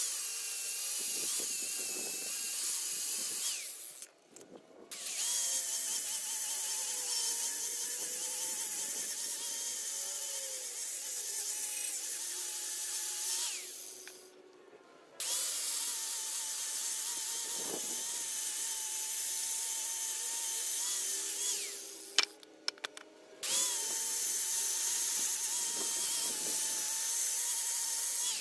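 Electric angle grinder with a flap disc sanding a weathered white mahogany fence post, a steady high whine that dips a little in pitch as the disc is pressed into the wood. It stops and starts again three times, in the gaps between passes.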